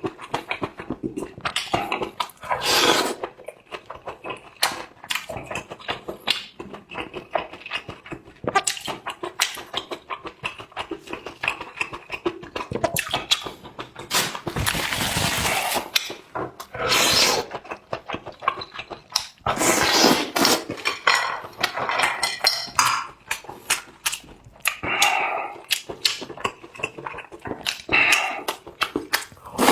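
Close-up eating sounds of someone eating spicy enoki mushrooms: many quick wet clicks of chewing, with several longer slurps and occasional clinks of utensils.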